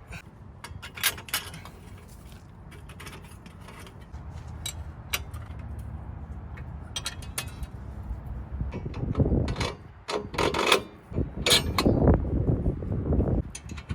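Hand-tool and metal-part handling noises: scattered sharp clicks and knocks with scraping, busier and louder in the last few seconds.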